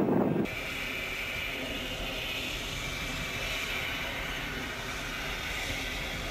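Small steam locomotive HC 5 and its train running, a steady hiss of steam over a rolling rumble with no distinct exhaust beats. A louder low rumble breaks off abruptly about half a second in.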